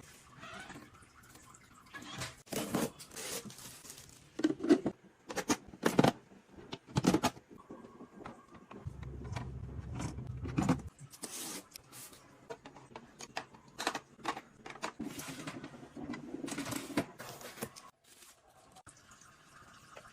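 Scattered clicks, taps and scrapes, like objects being handled and set down, with a low hum lasting about two seconds near the middle.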